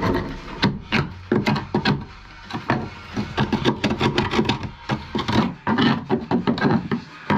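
A screwdriver scraping and picking at the stripped steel floor pan of a Jeep Cherokee XJ in quick, irregular strokes, clearing coating and debris before corrosion is sanded back.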